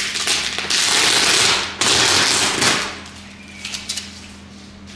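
Packing tape being ripped off a cardboard box: two long tearing rips of about a second each, followed by a few light crinkles.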